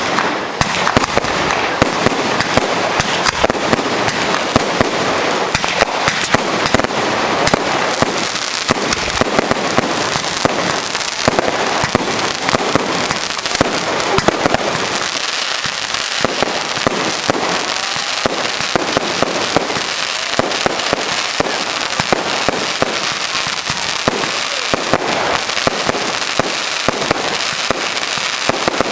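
Fireworks display: a continuous rapid stream of sharp bangs and crackling from aerial shells bursting and comets rising. The crackle thins out in the low end about halfway through but keeps going.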